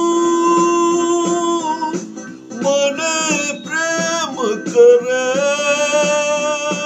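A man singing a Gujarati poem to a melody over instrumental accompaniment, holding long notes, with a sliding note about halfway through.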